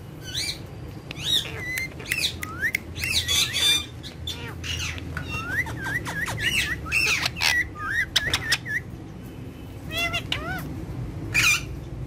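Indian ringneck parrots squawking and chirping: a rapid run of short, rising and falling whistled calls. The calls break off for about a second, then a few more come near the end.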